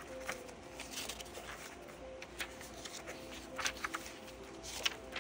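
Paper pages of a handmade journal being turned and handled: scattered soft rustles and flicks of paper, a few of them sharper about halfway through and near the end.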